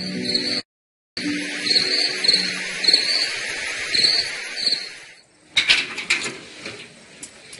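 Crickets chirping at night: a steady high chirring with regular brighter chirps, starting just after a moment of silence about a second in and fading out about five seconds in. Near the end comes a short run of sharp knocks and clicks.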